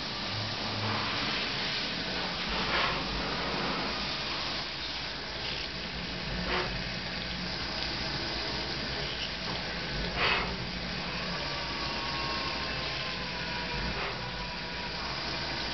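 Fadal CNC mill drilling holes in a humbucker keeper bar under flood coolant: a steady hiss of coolant spray and the running spindle, with a brief louder scrape about every three to four seconds. A faint whine comes in about two-thirds of the way through.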